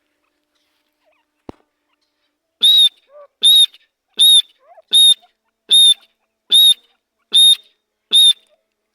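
A francolin (teetar) calling: a series of eight short, loud whistled notes at an even pace, a little under one a second, starting a few seconds in.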